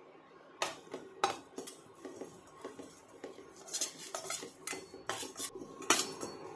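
Slotted metal spoon scraping and clinking against a stainless steel kadai, stirring cumin seeds and curry leaves as they roast. A few strokes come in the first half, then quicker, busier stirring in the second half.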